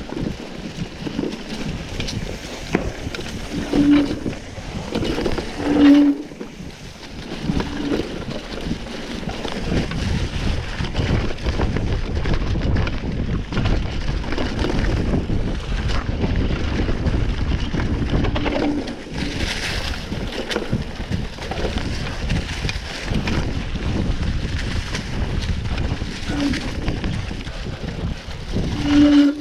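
Mountain-bike riding noise: wind buffeting the microphone over a steady rumble of tyres rolling on a dirt trail, with a few short low tones along the way.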